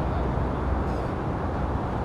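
Steady outdoor background rumble, strongest in the low end, with no distinct events.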